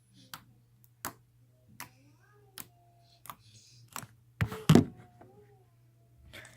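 Slime being poked and worked by hand, giving a series of sharp clicks about every three-quarters of a second, then two louder snaps close together past the middle.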